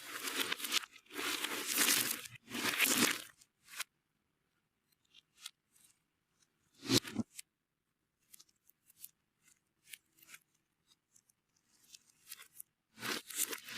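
Slime being worked and mixed with powder by hand, giving crackly, crunching squishes in bursts for the first three seconds or so. Then come a few small clicks and one louder knock about seven seconds in, and the crunching starts again near the end.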